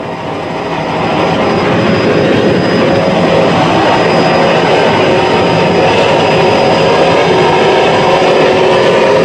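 Offshore racing powerboat engines running at high speed: a loud, steady roar that swells over the first second or two.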